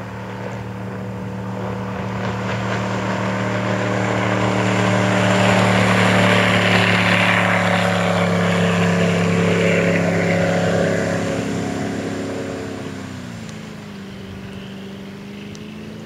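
Speedboat's 460 Ford big-block V8 running at high speed as the boat passes, with the hiss of its spray. The engine note swells to its loudest midway, then fades and drops in pitch near the end.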